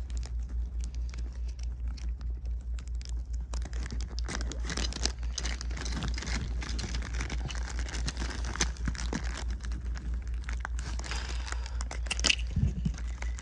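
Packaging crinkling and rustling as it is handled and opened, a dense run of irregular small rustles and clicks over a low steady hum.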